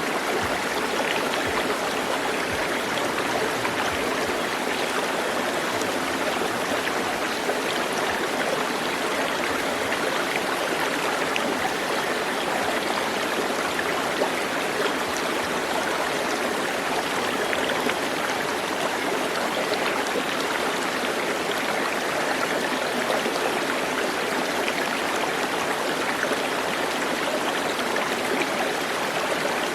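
Steady flowing water, an even unbroken rush like a stream.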